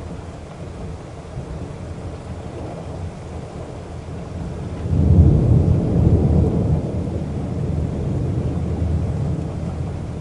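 Steady low rumble of a car driving in the rain, with a louder deep rumble swelling about five seconds in and slowly dying away.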